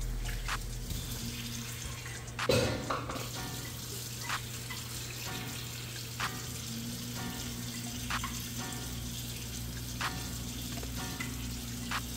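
Hot oil sizzling and bubbling around a mashed-potato ball deep-frying in a small saucepan. There is a brief clatter about two and a half seconds in.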